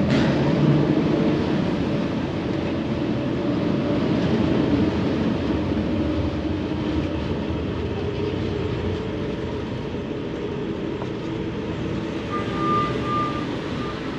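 A passenger ferry's engines running with a steady drone, mixed with the rush of water and air as the boat moves along, slowly getting quieter.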